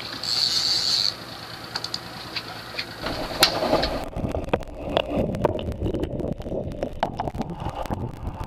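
Boat engine running at low speed, with a hiss of water in the first second. From about four seconds in the sound turns muffled and dull, a low rumble with scattered clicks and knocks.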